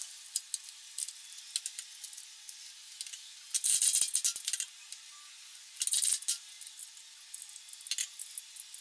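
Small metal parts clinking and rattling as they are handled, a scatter of light ticks with two short, louder rattling bursts about three and a half and six seconds in.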